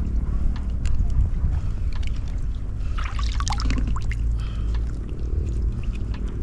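Water trickling and sloshing in a shallow pond as a wet net is handled, over a steady low rumble, with a short louder burst about three seconds in.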